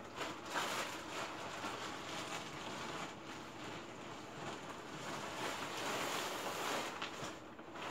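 Plastic trash compactor bag lining a backpack rustling and crinkling steadily as hands rummage inside it and pull at it.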